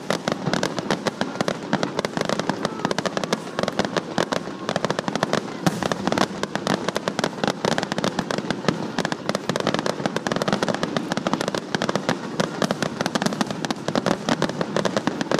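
Fireworks display: a dense, continuous barrage of rapid bangs and crackles from bursting shells.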